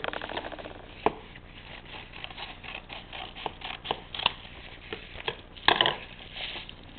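A padded mailer envelope being cut open and its packaging handled: a string of small clicks and crinkles, with a louder rustle near the end.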